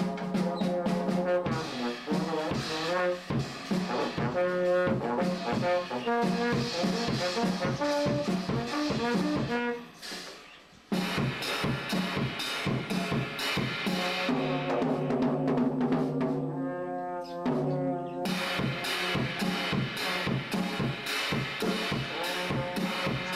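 Music with brass-like notes over a drum beat, dropping out briefly about ten seconds in.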